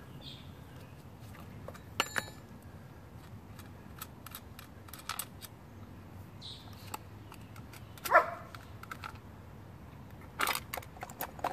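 Scattered metal clicks and knocks of a scrench working the bar nuts and the plastic chain cover being taken off an Echo CS-590 chainsaw, with the loudest knock about eight seconds in.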